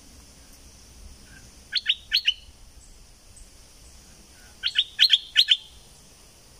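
Stripe-throated bulbul calling: two quick phrases of short, sharp falling notes, four notes about two seconds in and about six near five seconds.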